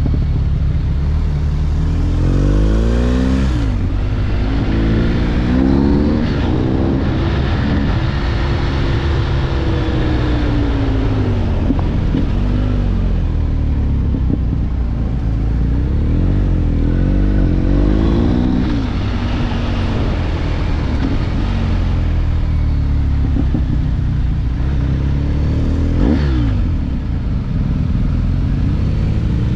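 BMW R 1250 GS boxer-twin engine under way, its pitch rising several times as it accelerates and falling away in between, over steady wind and road rumble.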